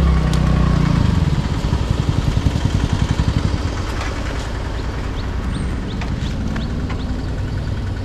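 Motorcycle engines idling at a standstill, with a deep, pulsing low thump that is loudest for the first three seconds or so and then settles into a steadier, quieter idle.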